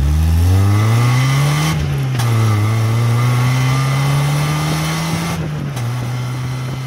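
Car engine accelerating: the pitch climbs, drops at a gear change about two seconds in, climbs again, then steps down at another shift about five and a half seconds in and runs on steadily. The car is most likely the Mazda MX-5 Miata (NB) that the video is about.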